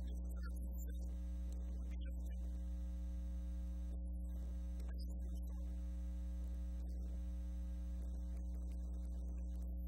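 Steady electrical mains hum with a ladder of higher buzzing overtones, unchanging throughout.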